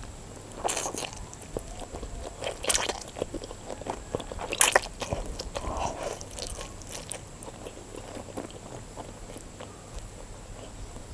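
A person eating spicy instant noodles: biting and chewing with wet mouth clicks, the loudest about one, three and five seconds in.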